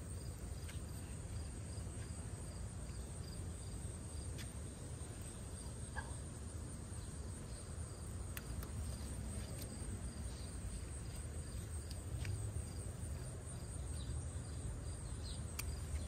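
Insects chirping steadily in a high, pulsing trill over a low outdoor rumble, with a few faint sharp clicks scattered through it.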